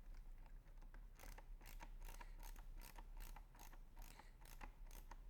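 Faint, even clicking, about four or five clicks a second, starting about a second in: a screwdriver driving a screw into the plastic end-cap moulding of a carbon-fibre tripod leg.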